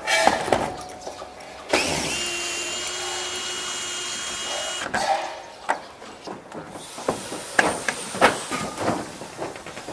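Power drill driving a screw into a metal roof, running steadily for about three seconds, then scattered sharp knocks and clanks on the metal roof sheeting.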